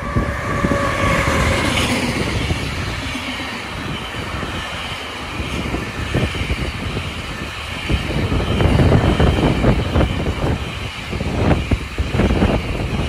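A train running past on the rails, a steady rumble with a faint whine over the first two seconds. About eight seconds in it grows louder and the wheels start clattering over the rail joints.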